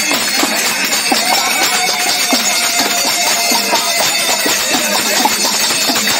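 Devotional Alekh bhajan sung by a woman's voice through a microphone and PA, with devotees clapping their hands in time.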